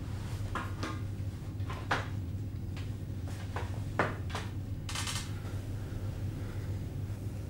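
A metal stepladder being handled and set in place: a string of light knocks and clanks, the loudest about two and four seconds in, then a brief scraping rustle. A steady low hum runs underneath.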